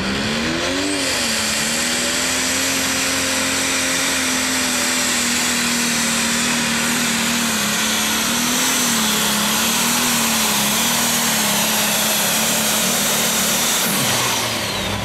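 Single-turbocharged John Deere Pro Stock pulling tractor's diesel engine revving up at launch, then running flat out under load down the pull track, with a high turbo whine over it. About fourteen seconds in the engine drops off and the whine falls away as the pull ends.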